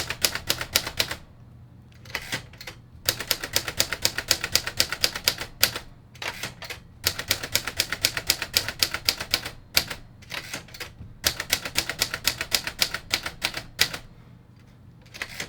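1958 Royal Aristocrat portable manual typewriter being typed on: quick runs of keystrokes, the type bars clacking against the platen, broken by a pause of a second or two near the start and another near the end.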